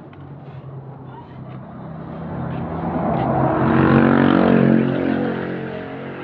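A motor vehicle passing by: its engine hum grows louder, peaks about four seconds in, and fades away again.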